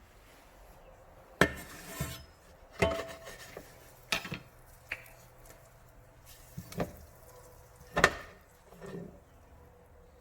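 Kitchen utensils and dishes clinking and knocking: about eight sharp, separate strikes at uneven intervals, some with a brief ring after them.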